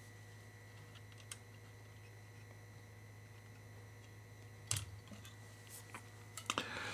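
Faint clicks and handling noises of wires and a hand tool being worked on a multimeter's circuit board, with one sharper click about two-thirds of the way through and a few more near the end, over a steady low hum.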